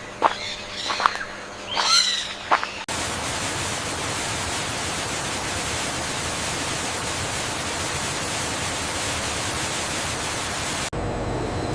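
A few short high chirps, then a loud, steady hiss like static that switches on abruptly about three seconds in and cuts off just as abruptly near the end, giving way to a low, steady hum.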